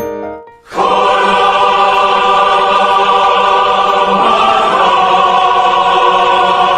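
Music: a choir-like voice chord held loud and steady for about seven seconds. It comes in sharply about a second in, after a few light chiming notes.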